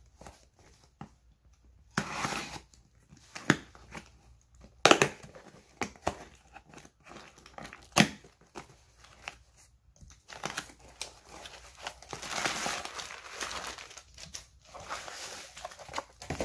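A small cardboard shipping box being opened by hand: tearing and several sharp cracks as the box is worked open, then crumpled packing paper rustling and crinkling as it is pulled out during the second half.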